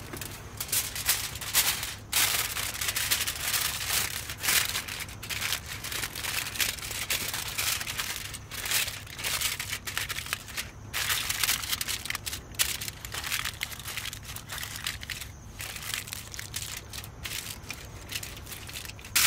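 Aluminium foil crinkling and crumpling as it is pressed and shaped by hand around a frying pan, in a dense, irregular crackle.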